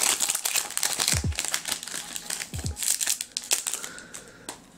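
Foil wrapper of a Panini Adrenalyn XL trading-card pack crinkling and crackling as it is pulled open by hand. The crackle thins out after about three seconds, with two short dull bumps along the way.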